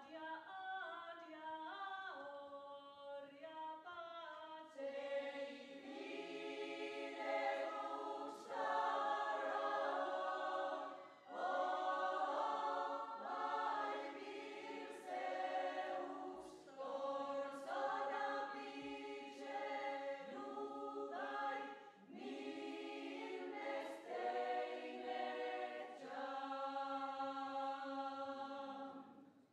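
Women's choir singing a cappella, held notes in phrases with short breaks between them; the song stops near the end.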